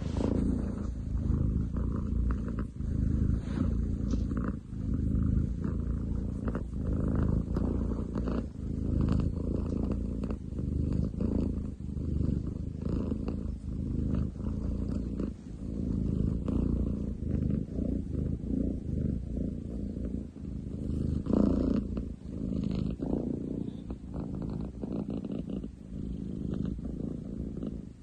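A long-legged munchkin cat purring very loudly, like a construction site, the low rumble swelling and fading with each breath.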